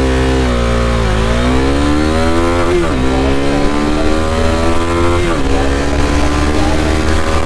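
Bajaj Dominar 250's single-cylinder engine accelerating hard from a standing start, heard from the saddle. The revs climb through the gears, with an upshift about three seconds in and another about five seconds in, each dropping the pitch before it rises again.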